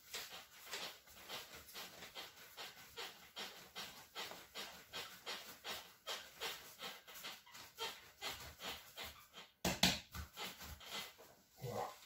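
Hands rounding a portion of bread dough on a floured board, a steady swishing rub of dough against the board at about three strokes a second. A louder thump comes near the end.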